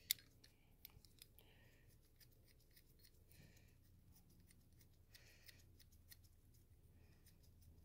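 Near silence with faint handling sounds: light metallic clicks, one sharper near the start, and a few short scratchy rustles as gloved hands fit a metal gasket onto a new EGR valve.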